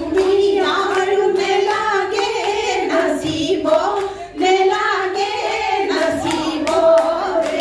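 Women singing a Jeng Bihu folk song together, with steady rhythmic hand-clapping in time with the song.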